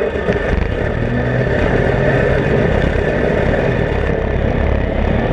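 Off-road race vehicle's engine running steadily, a loud, dense low rumble.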